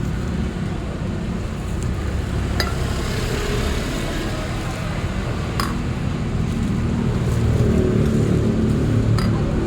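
Steady low rumble with three sharp clicks, about two and a half, five and a half and nine seconds in.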